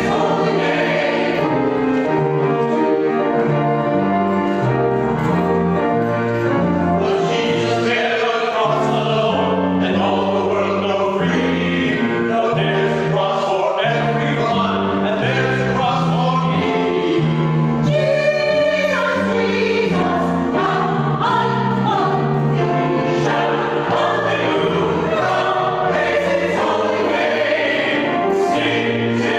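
Church choir of men and women singing together in parts, with long sustained notes and no break.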